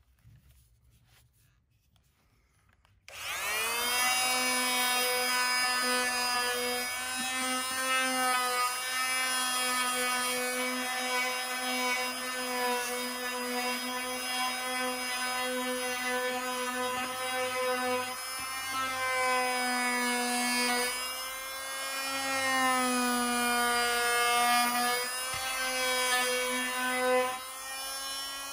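Multifunction tool with a triangular sanding pad and 60-grit paper switched on about three seconds in, its motor whine rising as it spins up, then sanding wood with a steady whine that wavers slightly in pitch under pressure. The sound dips briefly near the end.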